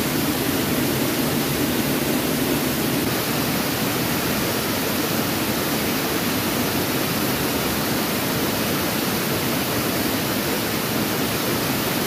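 Large waterfall, swollen by rainy-season rain: a steady, even rush of falling water.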